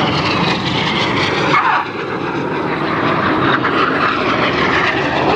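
BAE Hawk T1 jet aircraft flying past, a loud steady jet noise whose pitch falls as an aircraft passes, loudest about a second and a half in.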